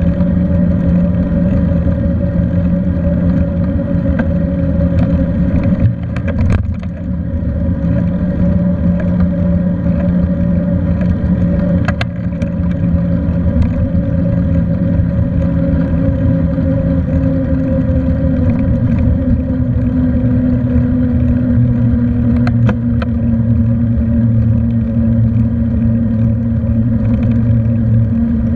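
Ride noise from a moving bicycle: a steady humming drone whose pitch drifts slowly, over a constant rumble of tyres and wind. A few sharp clicks or knocks break through at scattered moments.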